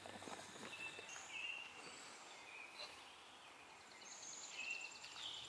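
Quiet outdoor ambience with birds calling: scattered short high chirps and a rapid ticking trill about three-quarters of the way through.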